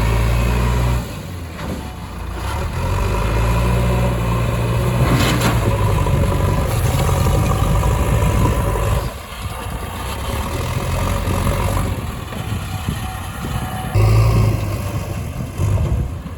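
Diesel engine of a backhoe loader or tractor running under varying load, its low rumble rising and falling several times, with sharp changes about a second in, about nine seconds in and near fourteen seconds.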